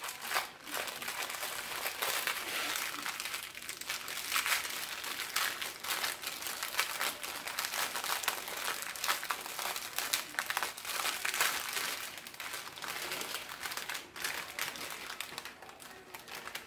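Clear plastic bag full of diamond painting drills crinkling continuously as hands squeeze and work it open, growing quieter near the end.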